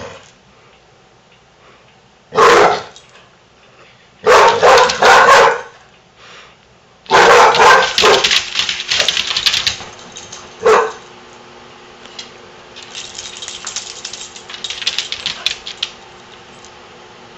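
Basset hounds barking in play: one bark about two seconds in, a quick run of barks around four to five seconds, a longer flurry of barks near the middle and one last bark. Fainter scuffling and rustling follows as a dog paws and noses about on a blanket on the floor.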